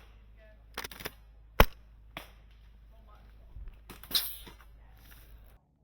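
Airsoft guns firing scattered single shots as sharp pops. The loudest comes about a second and a half in, and a hissing burst comes around four seconds. The sound cuts off abruptly near the end.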